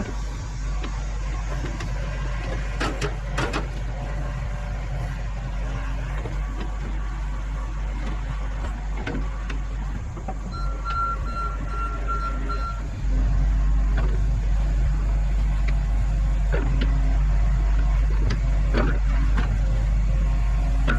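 John Deere 60G mini excavator's diesel engine running steadily, growing louder a little past the middle as it works harder. A short row of about five warning beeps sounds before that, and a few sharp knocks come through, typical of the bucket moving soil.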